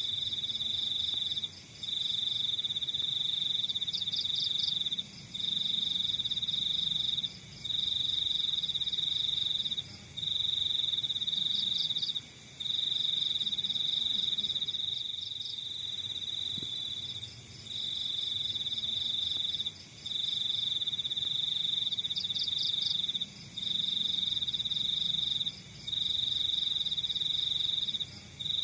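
Crickets trilling: one loud, steady, high trill in phrases of about two to three seconds, each broken by a short pause, with a fainter, faster pulsing chorus of other insects behind it.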